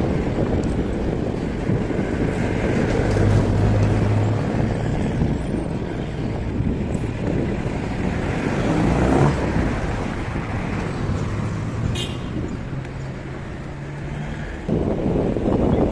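Wind rushing over the microphone of a moving bicycle, mixed with road traffic and the hum of passing motor vehicles' engines.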